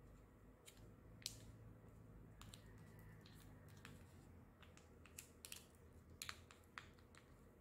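Faint scattered clicks and crinkles of fingers handling a small plastic sachet of yogurt starter powder while shaking the powder out into the milk.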